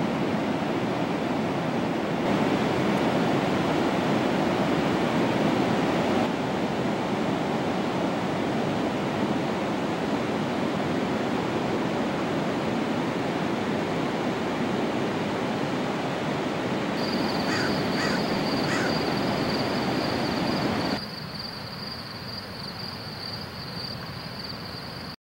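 Pacific surf breaking on a beach: a steady rush of waves. About two thirds of the way through, a bird calls three short times over the surf, and near the end the surf gives way to a quieter, thinner hiss.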